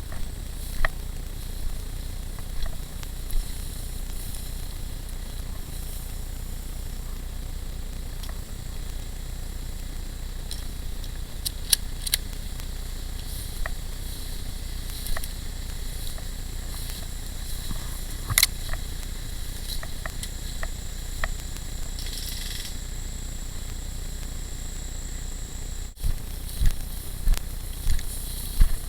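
Steady hiss and low rumble from a head-mounted camera's microphone, broken by scattered sharp snaps and clicks, with a quick run of them, about two a second, near the end.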